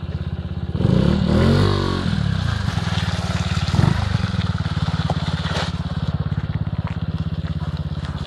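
Honda Zoomer 50cc scooter's single-cylinder four-stroke engine running at low revs as it pulls away and rides off. There is a throttle blip about a second in that rises and falls back, and a shorter surge about four seconds in.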